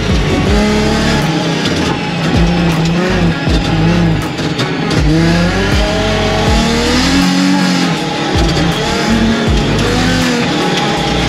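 Car engine heard from inside the cabin during a hard autocross run. Its pitch climbs and drops again and again as the driver accelerates and lifts between corners.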